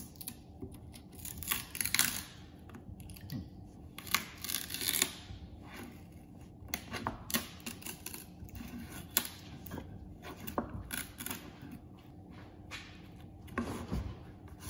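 Cured fibreglass laminate crackling and tearing as it is pried and peeled off a waxed plywood mold, in irregular rasps and sharp snaps. The part is still holding fast despite the wax and PVA release agent.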